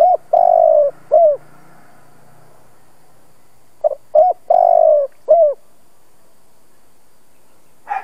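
Spotted dove cooing: two phrases about four seconds apart, each of short notes around a long, falling coo. A brief sharp noise near the end.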